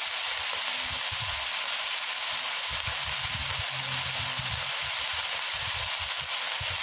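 Diced beef sizzling steadily as it sautés in a little oil in a frying pan.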